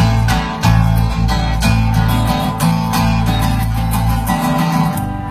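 Live band playing an instrumental passage: a guitar strummed in a steady rhythm over low sustained notes, with no singing yet.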